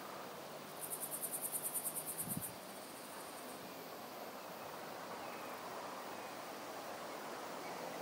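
An insect in the meadow grass trilling: a high, rapid pulsing of about ten pulses a second that lasts under two seconds, starting about a second in. It sits over a soft, steady outdoor hiss, with a faint low thump near its end.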